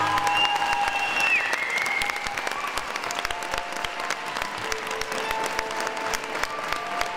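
Audience applauding as the dance music fades out, with a few quiet music notes continuing underneath.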